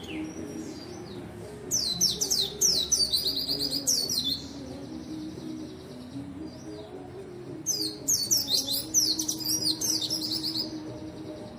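White-eye (pleci) singing: two long bursts of rapid, high-pitched twittering made of quick falling notes, with softer chips between them.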